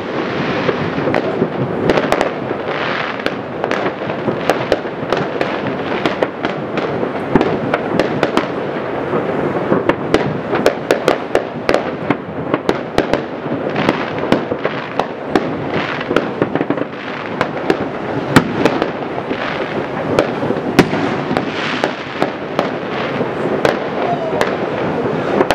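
Fireworks and firecrackers going off all over a city: a continuous din of many distant bangs and crackles, with louder single bangs standing out now and then.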